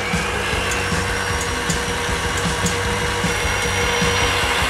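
Electric stand mixer running steadily, its whisk beating egg whites in a steel bowl. The motor's whine rises slightly in pitch at the start, then holds steady.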